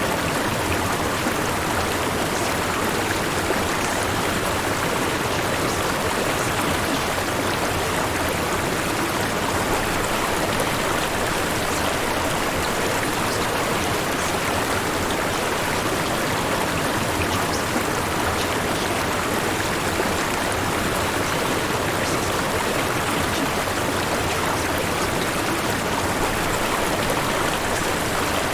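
Steady white noise: an even rushing hiss with no breaks or changes.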